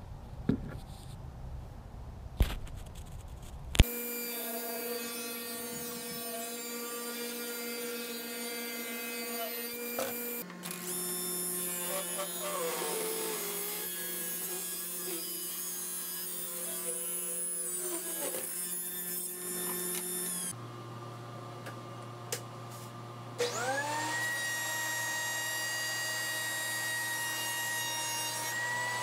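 Woodshop power tools running in a string of short edited clips: a table saw running steadily, then a benchtop thickness planer starting up, its pitch rising and settling into a steady whine. A few sharp knocks come near the start.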